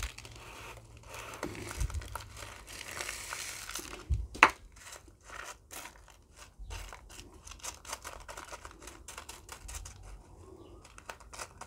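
Hydroponic substrate granules being poured and pressed into a plant cup: a dense patter of small clicks and rattles, with one sharper click about four and a half seconds in.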